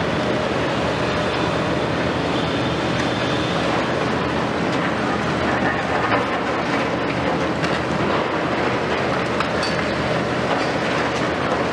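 Diesel engines of heavy demolition excavators, a Hitachi 870 long-front and a Liebherr 974, running steadily, with scattered sharp cracks and clatter of concrete debris breaking and falling as the high-reach boom works.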